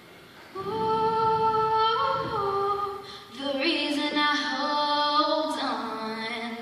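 A girl singing solo into a microphone with no instrumental accompaniment: long held notes starting about half a second in, a short breath around the middle, then a second, lower phrase.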